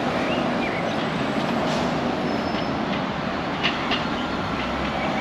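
Steady rumble of city street traffic, with two short sharp clicks a little past the middle.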